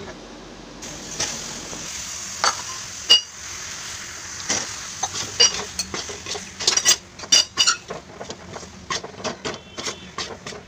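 Steel spatula scraping and clinking against a metal kadhai while stirring and pressing coarse roasted besan (gram flour). The scrapes come irregularly, with sharp metallic clinks scattered throughout.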